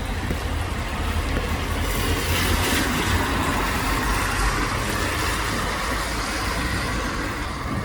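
Road traffic: a vehicle passing, its tyre hiss swelling through the middle and easing off near the end, over a steady low rumble.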